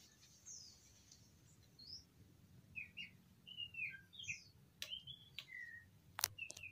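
Small birds chirping, in many short notes that bend up and down. A few sharp clicks come in near the end, one louder than the rest.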